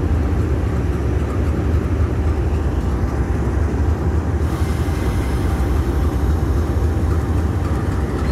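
Minnesota Commercial Railway diesel-electric locomotive idling while stopped, a steady low rumble.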